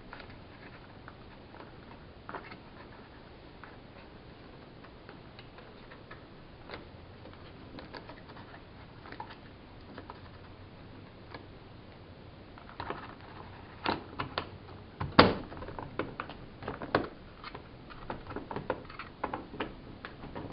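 Scattered clicks and taps of hands working a Nest 2nd-generation thermostat's display unit onto its wall base plate. The clicks are sparse at first and come thicker and louder in the second half, with one sharp loudest click about fifteen seconds in.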